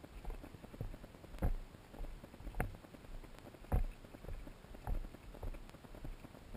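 Footsteps on a dirt trail: a dull thud about once a second, with faint scuffing between.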